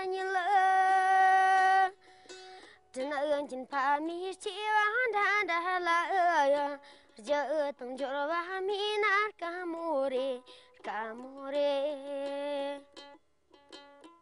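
A Tibetan folk song: a solo voice sings long, wavering, ornamented notes in phrases with short pauses between them. Near the end the voice drops away and plucked string notes are left.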